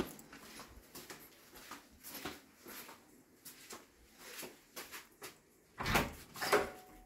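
An interior door being opened: two clunks from the latch and door about half a second apart near the end, after scattered light taps and rustles.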